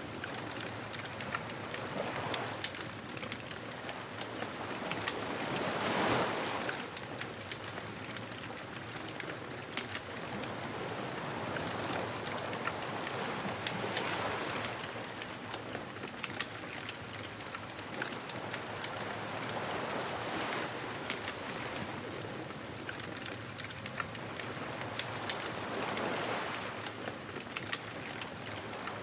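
Ocean waves washing onto a beach in slow swells every few seconds, with the snapping and popping of a crackling wood bonfire throughout.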